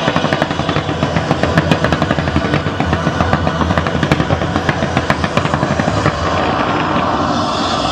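Fireworks display: a rapid-fire barrage of low-level comet and crackle shots, many sharp bangs a second in a dense volley, thinning out in the last couple of seconds. Music plays underneath.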